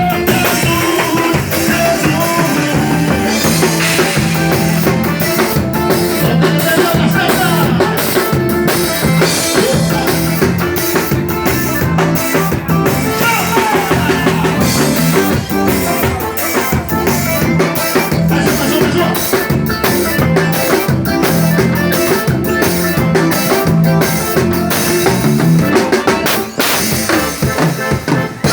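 Gospel forró music in a xote rhythm, played by a band with a drum kit keeping a steady beat.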